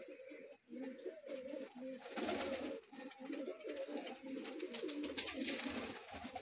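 Many domestic pigeons cooing together in a loft, with overlapping low calls throughout. Two short rushes of noise come about two seconds in and again around five seconds.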